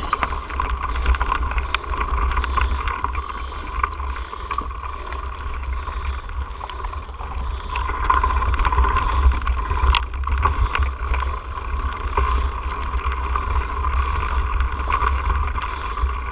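Mountain bike riding over a rocky dirt trail: tyres crunching over loose rock with frequent sharp clicks and knocks as the bike rattles over bumps, over a steady low wind rumble on the microphone.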